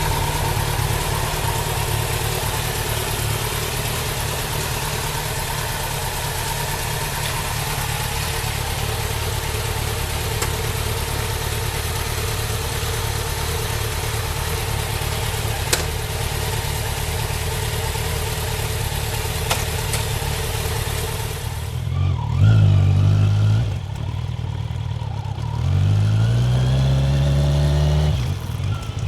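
Kawasaki Z900's inline-four engine running at steady speed under a loud, even rush of wind noise. About three-quarters of the way in the wind noise drops away, and the engine revs rise and fall twice as the bike accelerates.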